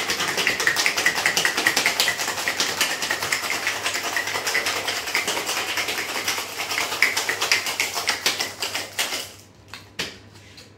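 Ice cubes rattling rapidly inside a metal cocktail shaker being shaken hard, stopping about nine seconds in; a couple of single clicks follow shortly after.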